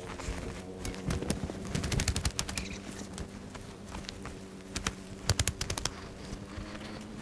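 Dry quinoa plants pulled up by hand and struck to knock the soil from their roots: two quick bursts of rattling knocks, about two seconds in and again after five seconds.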